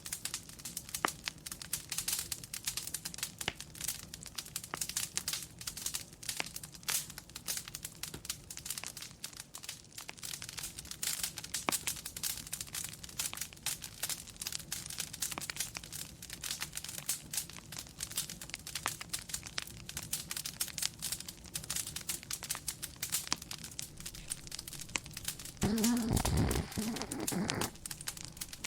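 Wood fire crackling in a fireplace, a dense run of irregular pops and snaps. Near the end a sleeping dog gives one snoring breath lasting about two seconds.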